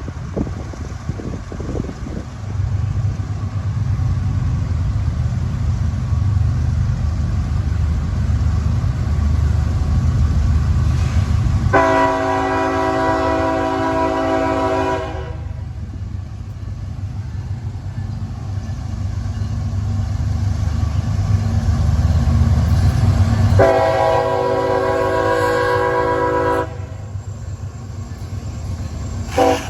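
Nathan K5HL five-chime horn on a CSX GE ET44AH locomotive sounding two long blasts and the start of a short third one near the end, over the low rumble of the diesel locomotives pulling the train. The uploader hears a weird sound in the horn but thinks it may just be his phone.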